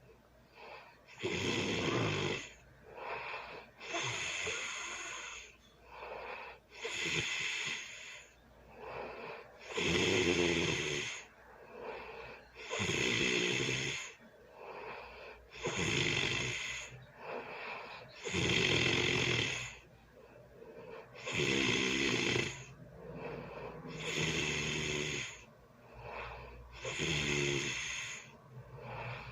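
A sleeping person snoring loudly: about ten snores, roughly one every three seconds, with softer sounds between them.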